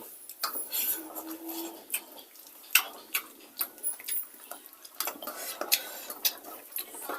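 Irregular clinks and scrapes of a spoon against plates and dishes during a meal.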